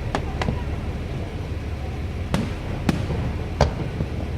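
Fireworks shells bursting: about five sharp bangs at uneven intervals, over a steady low rumble.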